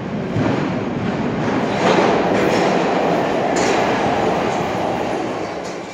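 CTA 5000-series subway train arriving at an underground station platform, a loud rumble and rattle of wheels on rails that swells about two seconds in, with a few sharp clacks, then eases off near the end as the train slows.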